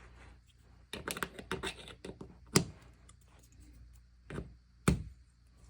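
Scattered sharp clicks and taps of small hard door-stop parts being handled: a quick cluster about a second in, then single louder clicks around the middle and near the end.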